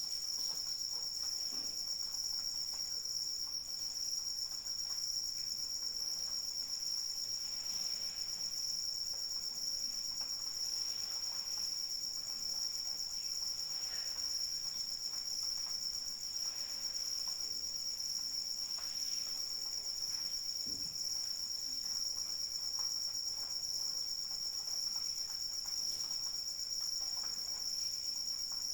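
A chorus of crickets trilling steadily without a break, several high tones at once, over a faint patter of light rain.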